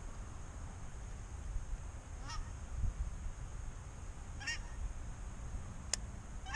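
Geese honking, three short calls about two seconds apart, over a steady low rumble, with one sharp click near the end.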